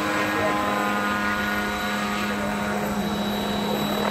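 Unmanned crop-spraying helicopter flying past: a steady drone of rotor and motor with a strong hum, its pitch falling slightly about halfway through as it goes by.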